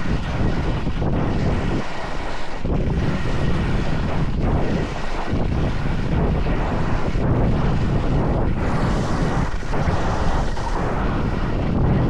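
Wind buffeting the microphone and skis scraping over icy, hard-packed snow during a fast downhill ski run, a steady loud rushing.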